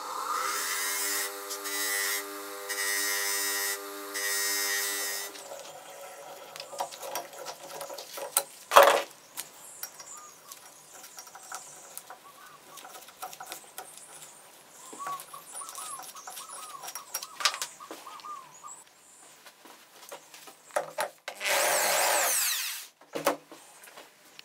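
Bench grinder running, its wheel grinding metal in three short passes over the first five seconds. Then quieter clinks of metal parts being handled, with one sharp knock. Near the end a power drill runs briefly, winding up.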